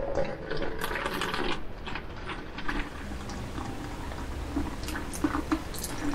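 Coffee being poured from a glass coffee-pot carafe into a thin plastic water bottle: liquid running into the narrow neck, with many small clicks and crackles, busiest in the first second and a half and scattered after that.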